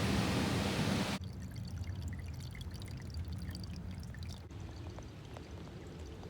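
Water rushing out of plumbing, cut off suddenly about a second in, followed by faint dripping and trickling.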